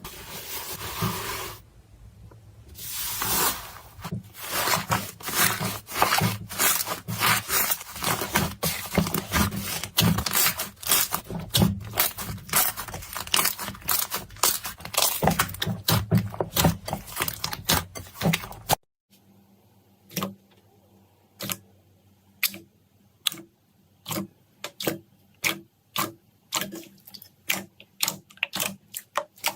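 Slime being squeezed and pressed, with dense crackling and popping. About nineteen seconds in it cuts off suddenly and separate sharp clicks follow, roughly two a second.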